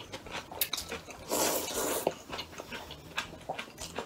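A person slurping thin noodles off chopsticks, with one long noisy slurp about a second and a half in and small wet sucking and chewing clicks around it.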